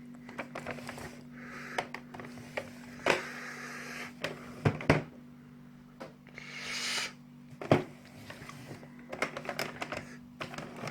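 Irregular plastic clicks, clunks and knocks from a Tomy Turnin' Turbo toy dashboard being handled, with a short rustle about six seconds in, over a steady low hum.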